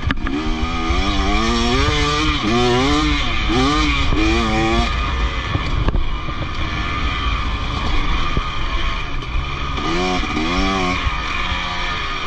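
KTM motocross bike's engine revving hard, its pitch climbing and falling back several times in quick succession, then again about ten seconds in, over a steady rush of wind noise.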